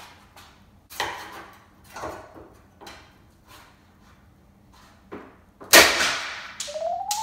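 A steel pry bar knocking and cracking against a laminate countertop's edge as it is levered up: a few sharp knocks about a second apart, then a louder crack near the end as something breaks.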